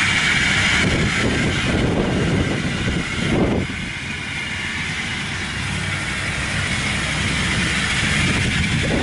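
Engine of a farm hauling cart loaded with rice sacks, running steadily as it drives over soft, muddy ground, getting a little quieter about a third of the way in as it pulls away.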